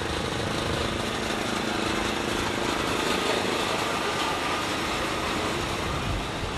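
Small go-kart engines running steadily as the karts lap the track, a light buzzing engine drone.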